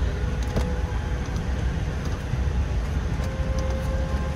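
Steady low rumble and hiss of a Boeing 787-9 airliner cabin, with a few faint clicks and a faint brief hum in the second half.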